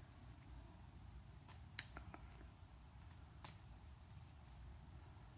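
Near silence with a few faint, sharp clicks, the loudest just under two seconds in, from small airsoft gearbox parts (nozzle and tappet plate) being handled.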